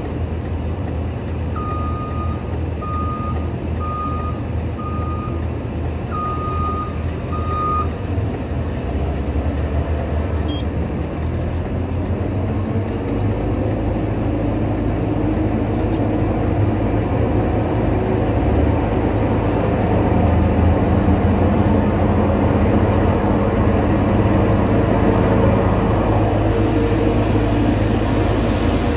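Caterpillar 279C compact track loader's diesel engine running, with its reversing alarm beeping six times at about one beep a second in the first several seconds. The engine sound grows louder and busier in the second half as the machine works.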